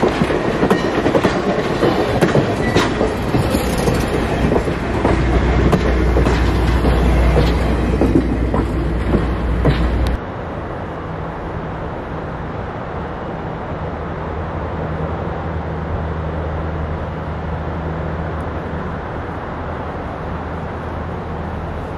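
Passenger train cars rolling past close by: wheels clicking over rail joints with a low rumble that builds, then cut off abruptly about ten seconds in. After that, a steady distant drone from the diesel locomotives, ex-Norfolk and Western EMD GP9s, pulling the train.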